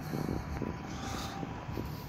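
Street ambience with rustle and wind noise from a handheld phone carried while walking, with a few faint knocks.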